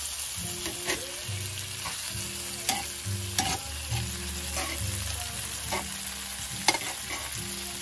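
Halved tomatoes sizzling in olive oil in a cast-iron skillet, with sharp clicks and scrapes of metal tongs turning them against the pan.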